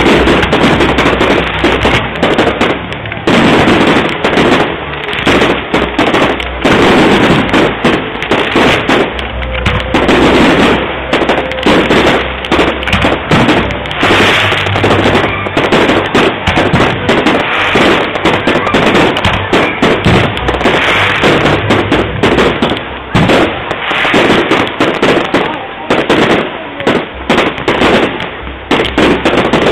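Fireworks display in a dense, continuous barrage: shell bursts and crackle follow one another with no pause, loud enough to push the mobile phone's microphone close to its limit.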